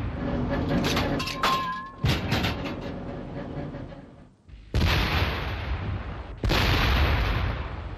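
Self-propelled howitzers firing a battery salvo: heavy gun reports about two, five and six and a half seconds in, each one sudden and rolling on for a second or more, over the fading rumble of a shot already going at the start. A brief high squeal sounds about one and a half seconds in.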